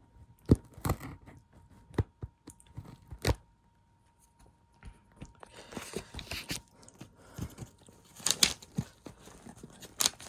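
Paper-wrapped package being handled and picked at while someone struggles to open it: scattered knocks and clicks, a short lull, then paper crinkling and tearing with sharp crackles near the end.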